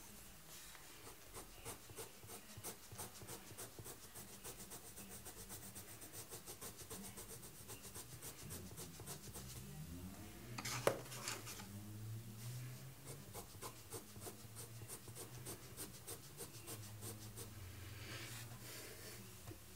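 Faint scratching of a coloured pencil shading on sketchbook paper in quick, repeated back-and-forth strokes, with a single louder knock about halfway through.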